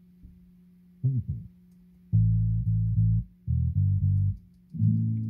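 Bass guitar music played through a car audio system's mid-bass speakers alone, with nothing higher than the low notes: a short note about a second in, then two held notes of about a second each, and a last one from near the end that rings on. It is the test track used to check the mid-bass time alignment, the stereo image meant to sit centred on the dash.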